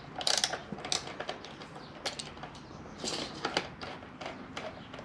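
Socket ratchet clicking in short runs of quick ticks, a few times, as small bolts are loosened.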